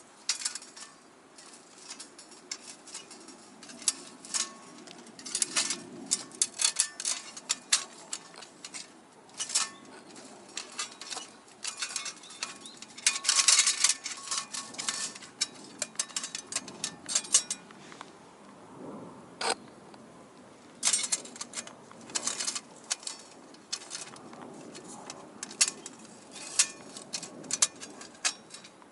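Light metal clinking and clattering of thin stainless steel parts being handled, in irregular clusters of sharp clicks with a longer rattle about halfway through.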